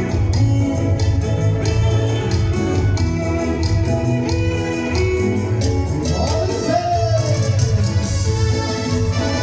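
Dance music with a steady beat and a strong bass line, with guitar in it.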